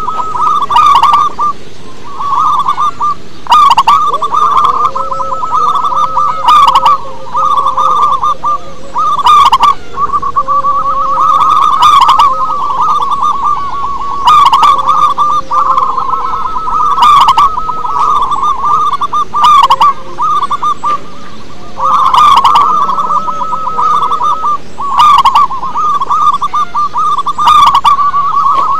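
Zebra doves (perkutut) cooing: a loud, continuous chorus of rapid trilling coos, with lower held notes now and then and a sharper burst about every two and a half seconds.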